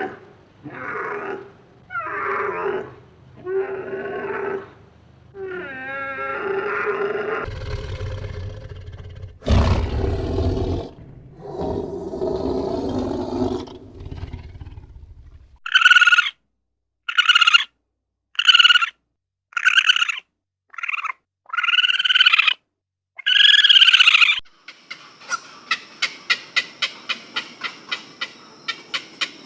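A run of different animal calls, one after another: a string of repeated pitched calls, then a long, deep roar, then eight short, loud, high-pitched calls, and near the end a fast run of ticking clicks.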